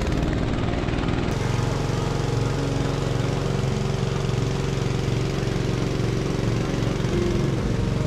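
Honda GX small four-stroke petrol engine running steadily at a constant speed.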